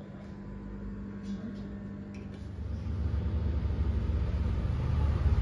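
A low steady hum, then a low mechanical rumble that grows louder from about halfway.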